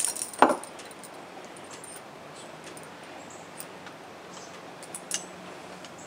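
Metal leash clips and collar hardware clinking and jingling as leashes are clipped onto dogs' collars, with a thump about half a second in and a few light clicks after.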